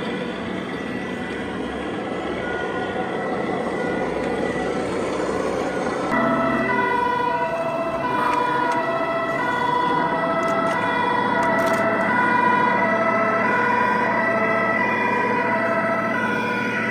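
Two-tone fire-engine siren from a radio-controlled model fire truck's sound module, alternating between a high and a low note, starting about six seconds in over steady background noise.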